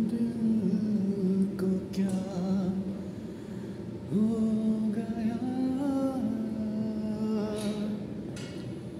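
A single voice singing slow, drawn-out notes in long phrases, with a short break about four seconds in.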